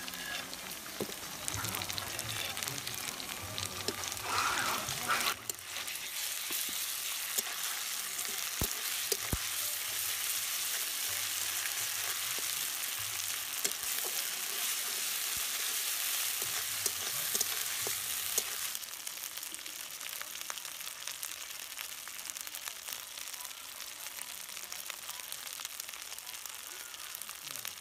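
Sliced onions and ground spice paste sizzling in hot oil in a wok, with a metal spatula scraping and clicking against the pan as the masala is stirred and fried. The sizzling drops a little about two-thirds of the way through.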